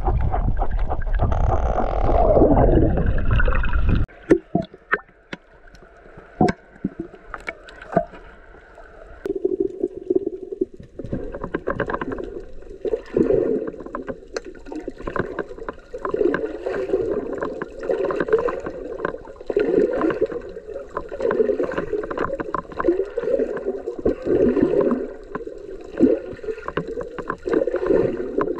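Underwater sound: water rushing and gurgling around the camera, loud for the first few seconds and then cutting off suddenly, followed by scattered sharp clicks and, from about a third of the way in, an uneven pulsing slosh of moving water.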